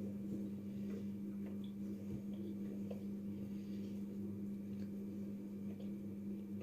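A steady low hum with a few faint, soft clicks over it.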